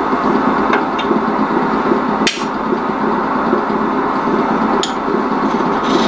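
Union Jubilee wood lathe running steadily, with a few sharp clicks or knocks from the tool on the work, the loudest a little over two seconds in.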